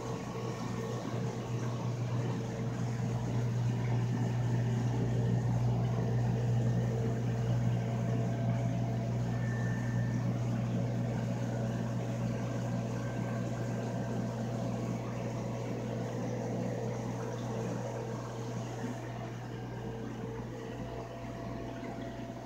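Steady low hum under an even wash of water noise from aquarium pumps and filters running.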